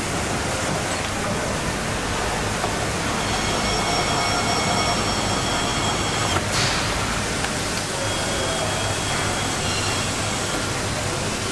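Steady rushing air noise of an automotive paint booth with its painting robots at work. Faint high whining tones come and go through it, and there is a short whoosh about six and a half seconds in.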